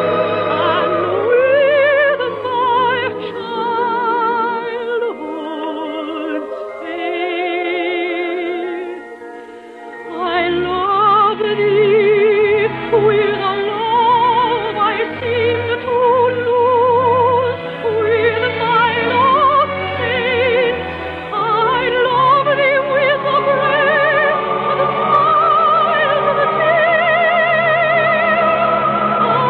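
Operatic-style singing with strong vibrato over an orchestra. It has the dull, narrow sound of an old radio transcription with no highs. The music softens and thins about five seconds in, then swells again with the lower parts about ten seconds in.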